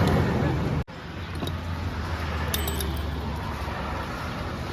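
Light metallic clinks of tools and parts being handled on a scooter's starter drive, a few sharp ones about two and a half seconds in, over a steady low hum. A louder noisy stretch cuts off abruptly just under a second in.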